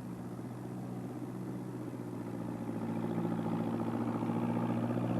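Engine of the forestry log-lifting machine running at a steady pitch, growing gradually louder as it approaches.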